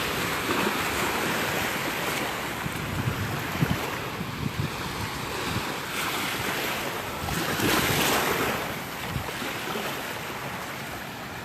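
Gulf of Mexico surf washing onto the beach, swelling and ebbing, with wind rumbling on the microphone.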